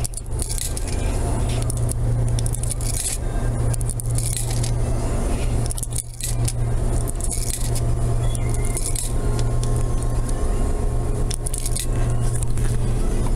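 Quarters fed one after another into the coin slot of a laundromat washing machine: scattered metallic clinks and scrapes over a steady low hum.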